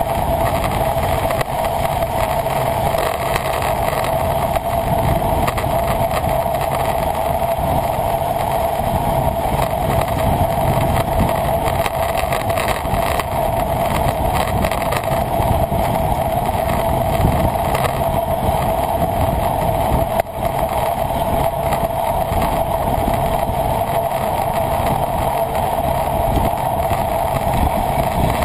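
Steady wind rush and road noise picked up by a camera riding along in a bicycle road race, with a brief dip about 20 seconds in.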